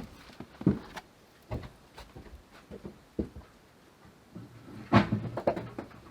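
Irregular knocks and clunks of objects being handled and set down, a few scattered single knocks, then the loudest cluster about five seconds in.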